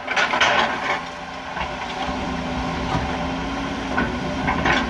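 Excavator diesel engine running steadily, with a few knocks and clanks from the machine at work near the start.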